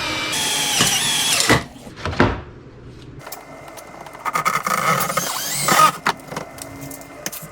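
Power drill driving self-tapping screws. It runs in two spurts, the second rising in pitch near its end, with a few sharp clicks between.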